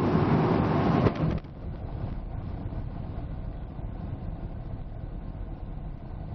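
2003 Dodge Ram 1500's 4.7-litre V8 running at idle while it warms up to bleed air from the cooling system. About a second and a half in, the sound drops sharply and turns dull and muffled as a finger covers the microphone, leaving a steady low rumble.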